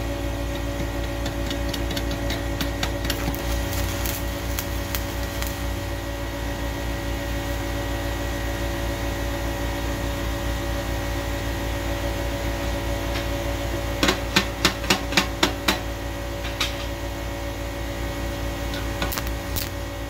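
Steady machine hum with scattered light clicks of metal parts being handled, then a quick run of about seven sharp metal taps about fourteen seconds in, as a small latch piece is fitted to the steel grill drum before welding.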